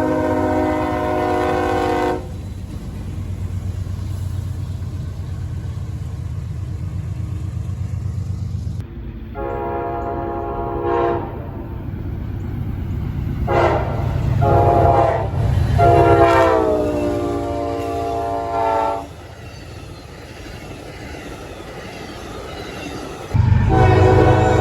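Locomotive air horn sounding a chord in a series of blasts of varying length, some long and some short, over the steady rumble of a passing train. The longest blast slides down in pitch as the locomotive goes by. Another horn chord starts abruptly near the end.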